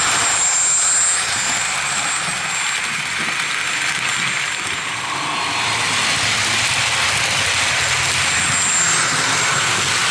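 Model trains running past at close range: a steady whirring rumble of electric motors and wheels on the rails. A faint high whine rises over it near the start and again near the end.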